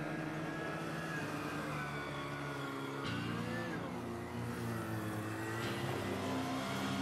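1972 Cushman Trackster's engine running, its pitch rising and falling a few times as the revs change.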